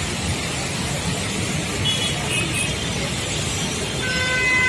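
Traffic driving slowly through a flooded road: engines of auto-rickshaws, motorbikes and cars with tyres pushing through water. A vehicle horn sounds near the end.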